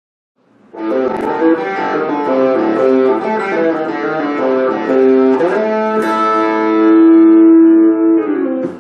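Solid-body electric guitar played, starting about a second in: a quick run of picked notes, then slower held notes, the last one ringing for over a second before stopping abruptly.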